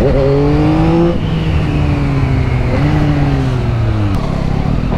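Yamaha XSR900 inline-three motorcycle engine under way: it revs up, drops in pitch at a gear change about a second in, then its note slowly falls with a brief rise near three seconds. About four seconds in the throttle closes and the engine note gives way to a low rumble.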